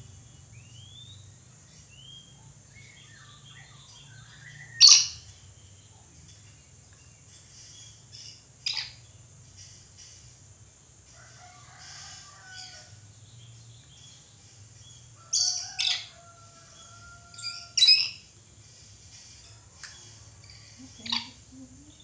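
Red lory giving short, loud, harsh calls: single ones about five and nine seconds in, a quick run of four in the latter half, and one more near the end. Fainter chirps and whistles come between them over a steady low hum.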